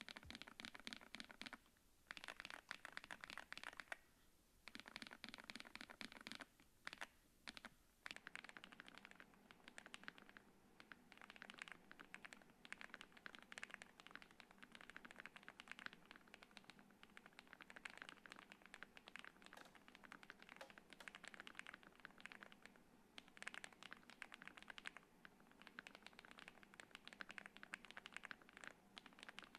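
Faint typing on a Meletrix Zoom75 mechanical keyboard with Akko V3 Creamy Yellow Pro linear switches on an FR4 plate: rapid keystroke clacks with a couple of short pauses in the first few seconds, then fast, nearly unbroken typing.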